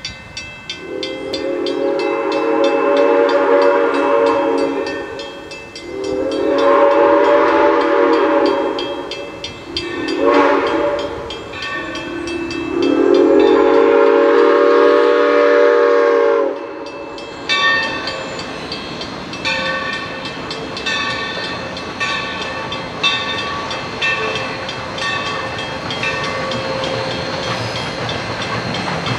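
Whistle of Mikado 2-8-2 steam locomotive 3025 sounding the grade-crossing signal: long, long, short, long, the last blast held about four seconds. After the whistle, a bell rings about once a second.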